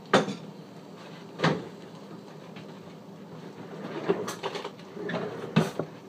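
Kitchen drawer or cupboard being opened and shut and a utensil taken out: a series of separate knocks and clatters spread over several seconds, over a steady background hum.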